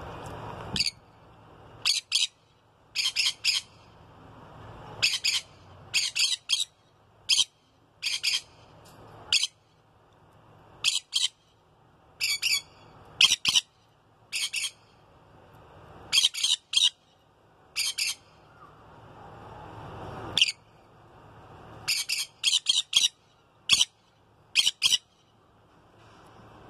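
Pet conures squawking: short, sharp, loud calls, often in quick runs of two to four, repeated every second or two.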